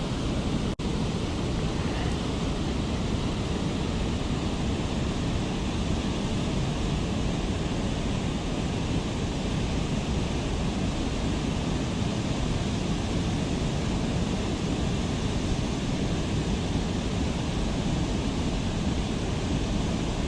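Steady rushing outdoor noise, an even hiss with no distinct events, with a momentary dropout about a second in.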